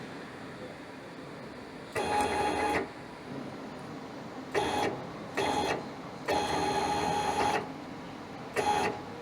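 Hybrid servo (closed-loop stepper) motor driving a linear actuator axis in five short moves. Each move is a steady pitched whine; the longest lasts about a second and a half, past the middle.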